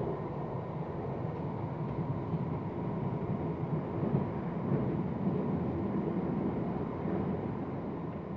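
Steady rumble of a moving train heard from inside the carriage, slowly easing off near the end.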